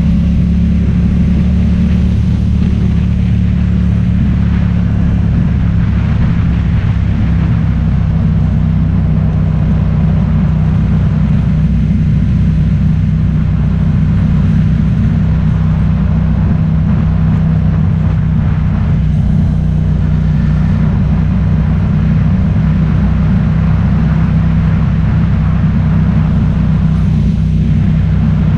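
A vehicle's engine running steadily with a low drone, together with road noise, as heard during a ride.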